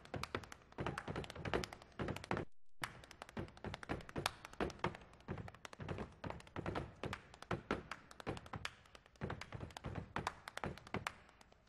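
Solo body percussion: a rapid, irregular run of hand claps, slaps on the body and sneaker stomps and steps on a stage floor. It breaks off for a moment about two and a half seconds in, then carries on.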